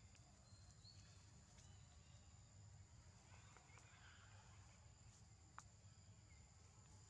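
Near silence: faint outdoor ambience with a steady high-pitched insect drone, and one sharp click about five and a half seconds in.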